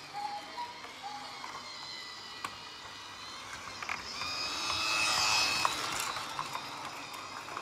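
Battery-powered Duplo Steam Train's small electric motor whirring as the toy runs along its plastic track, getting louder as it passes close by about five seconds in, with a few clicks along the way.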